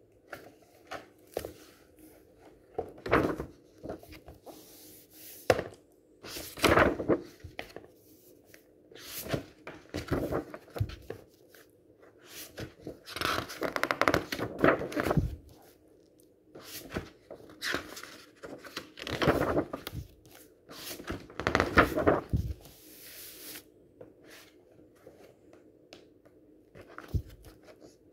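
Hands handling a hardcover book: scattered knocks and thuds against the cover, and the cover and paper pages being turned with crisp rustles, loudest and longest about halfway through.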